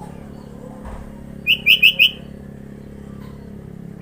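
Sooty-headed bulbul giving four quick, sharp, high chirps in about half a second.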